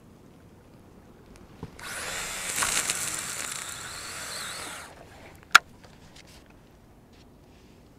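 A fishing reel's spool spinning free as line pays out during a cast: a hissing whir starts about two seconds in, lasts about three seconds and fades as the spool slows. A single sharp click follows about a second later.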